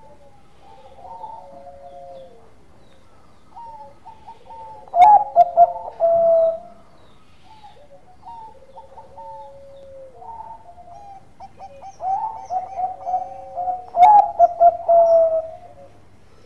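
Zebra dove (Bangkok perkutut) singing: soft coos throughout, with two louder full song phrases about five and twelve seconds in, each a run of quick notes ending in a longer held coo.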